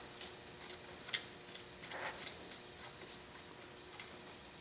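Faint, irregular light metallic clicks and ticks of a steel cap screw being turned in by hand on the change-gear bracket (banjo) of a South Bend 9-inch lathe, with one sharper click about a second in.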